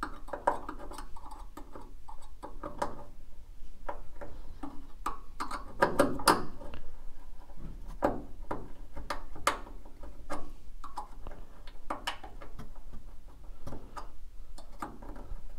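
A screwdriver prying at the barbed metal retaining plate on the lower mount of an Audi 5000's hood gas strut, giving irregular small metallic clicks and scrapes with a few sharper clicks along the way.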